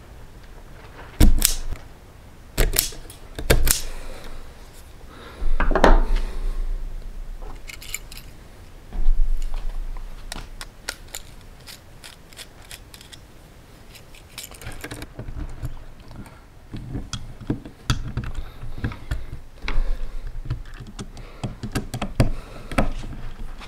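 Hand tools working a wall outlet: three sharp clicks in the first four seconds from a wire stripper at a blue plastic electrical box, a longer scraping sound around six seconds and a thump near nine. Later comes a run of small clicks and scrapes as a screwdriver drives the screws holding a duplex receptacle into the box.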